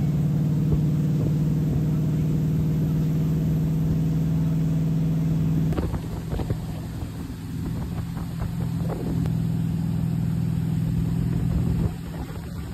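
Ski boat's engine running steadily at towing speed, heard from on board with water rushing past. The sound changes abruptly about six seconds in and again near the end.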